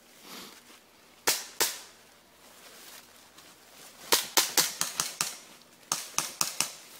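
Airsoft guns firing: two sharp shots about a second in, then two quick strings of single shots, about five a second, in the second half.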